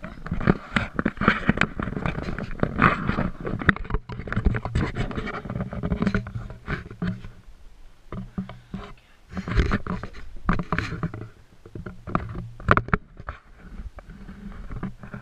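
Close-up scraping, rustling and irregular knocking as the camera is handled and moved about, with quieter stretches partway through.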